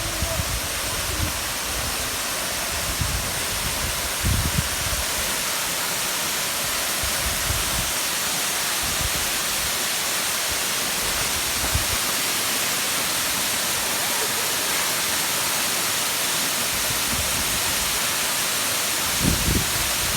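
Waterfall: a steady, even rush of falling water, with a few brief low thumps.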